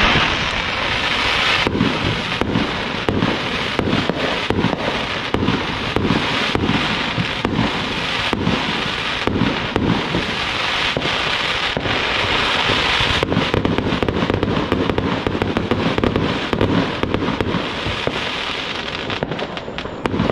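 Aerial fireworks going off in a continuous barrage: two or three sharp bangs a second over steady crackling from the bursting stars.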